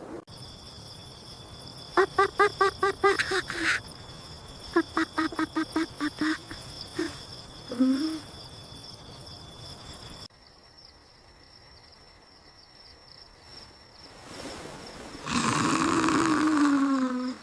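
Night-time cricket chirring as a steady high background, broken twice by bursts of rapid, stuttering pitched vocal sounds from a cartoon character, and near the end a longer, louder voiced call that falls in pitch.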